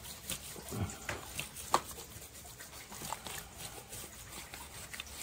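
Hands rubbing salt into the slimy skin of a large catfish in a plastic basin: soft wet squelching with a run of small clicks and smacks, the sharpest just under two seconds in.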